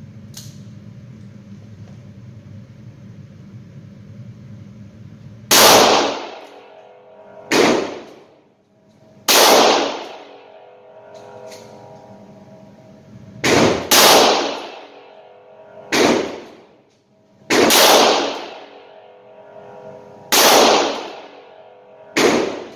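Slow, single-action shots from a Rock Island AL9.0 9mm revolver firing Armscor 115-grain rounds in an indoor range. The reports begin about five seconds in and come one to three seconds apart, about nine in all, with two close pairs. Each is a sharp crack that rings out in the range.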